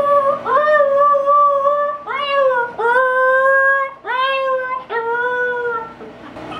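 Siberian Husky puppy howling: a run of about five howls, each swooping up in pitch and then held, from a puppy upset at being left alone inside.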